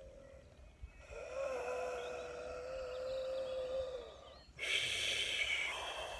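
A man's light-language vocalising: one long, steady, fairly high tone held for about three seconds, then a loud, breathy rush of breath forced out for over a second.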